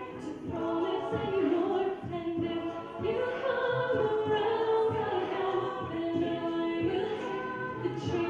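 A cappella vocal group singing held chords in close harmony, with no clear words, over a steady low beat.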